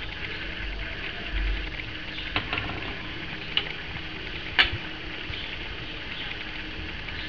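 Soft crackling rustle with many tiny ticks as a mother cat shifts over her newborn kittens on cloth, with a few small clicks and one sharper click about four and a half seconds in.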